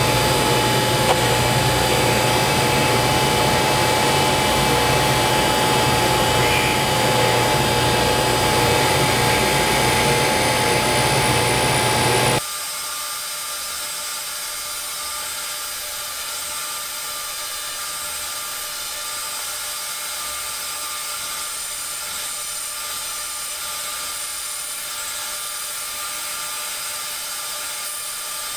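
Tool and cutter grinder running, its wheel grinding a rod of alumina bisque ceramic as the workhead turns it: a steady mechanical whir with a high whine. About twelve seconds in, the loud machine noise cuts off abruptly, leaving a quieter steady hiss with thin high tones.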